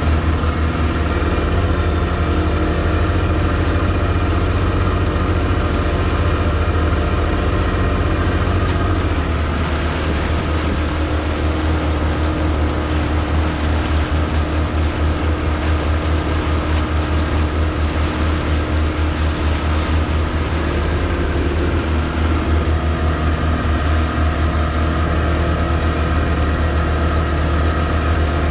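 40 hp outboard motor running steadily at cruising speed, driving a small fishing boat, with water rushing past the hull. Its note changes and turns more pulsing about nine seconds in.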